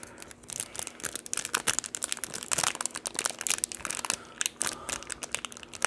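Clear plastic card wrapper crinkling with many quick, irregular crackles as gloved fingers pry it open and pull it apart.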